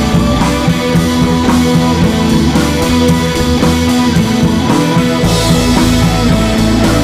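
Background rock music with guitar and drums over a steady beat.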